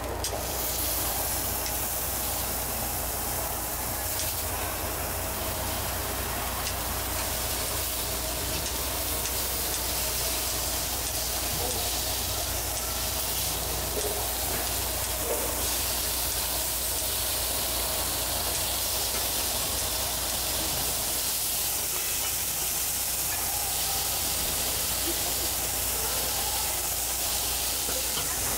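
Chicken pieces and sausages sizzling steadily on a hot flat-top griddle, a constant frying hiss.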